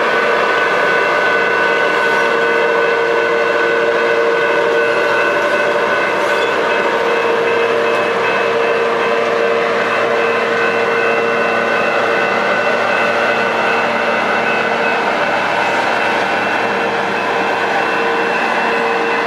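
Train of stainless-steel passenger cars rolling past on the rails: a steady rumbling wheel noise with several held, ringing high tones over it throughout.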